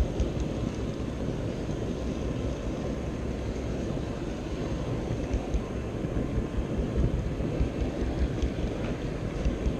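Steady low rumble of a model train rolling along its track, heard from a camera riding on the train, with a few faint light clicks over it and the background hum of a large hall.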